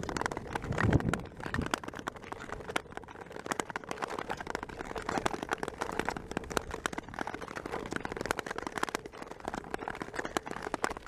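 Ice skates cutting and scraping over frost-covered lake ice, making a dense, continuous crackle with a few louder strokes near the start.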